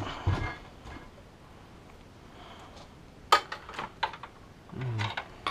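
SATA cables and their plastic connectors being handled inside a PC case: a few short sharp clicks about three to four seconds in, with a brief low hum from a voice near the end.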